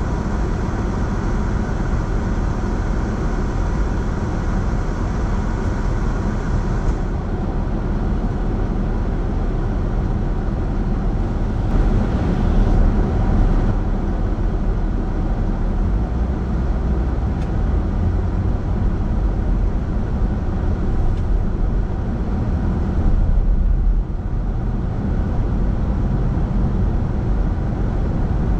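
Steady rumble of a car being driven on city roads: tyre and engine noise, with two brief louder swells, one before halfway and one near the end.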